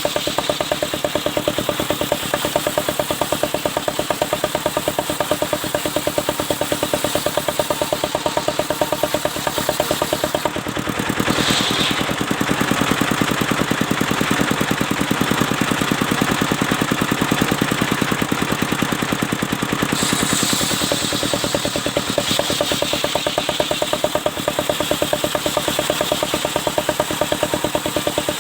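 Engine of a portable circular sawmill running steadily with a rapid, even pulse while it drives the saw. The sound shifts about ten seconds in, with a brief high note a second later, and shifts again around twenty seconds in, as the blade works through albasia wood.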